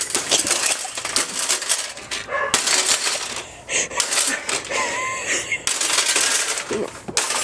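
Hammers striking a metal computer tower case over and over: many quick, sharp metallic clanks.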